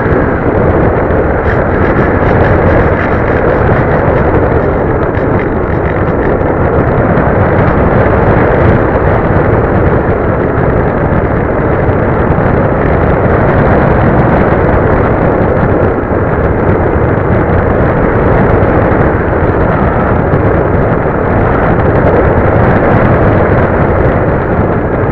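Loud, steady in-flight noise from a camera mounted on a flying RC plane: wind rushing and buffeting over the microphone, mixed with the plane's motor and propeller.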